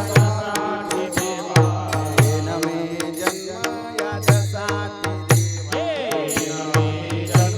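Devotional kirtan music: deep drum strokes and sharp percussion hits keep a steady beat under a sustained melody.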